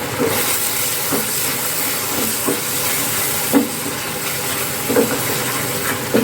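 Spice masala sizzling in hot oil in a pan, a steady hiss, with a spatula stirring and scraping the pan every second or so.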